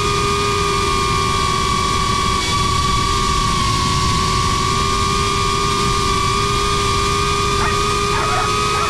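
GEPRC Crown HD cinewhoop drone's motors and ducted propellers whining steadily at a nearly constant pitch, over a low rush of air.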